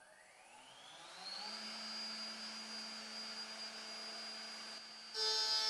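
Danibrum 1328 PANA CNC router spindle spinning up, its whine rising steeply in pitch and settling into a steady high whine about a second and a half in. Near the end a much louder sound with several steady tones cuts in abruptly.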